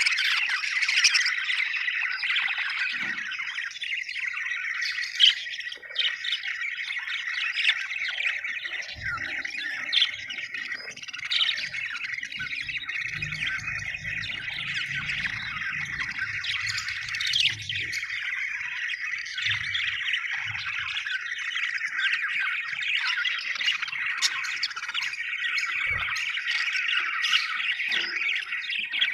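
A group of budgerigars chirping and chattering non-stop, a dense warble with sharp louder squawks popping out every second or two.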